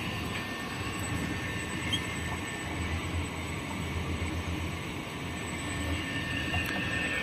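Label slitting machine with turret rewinder running: a steady low mechanical hum from its motor and rollers, with a thin steady high whine over it.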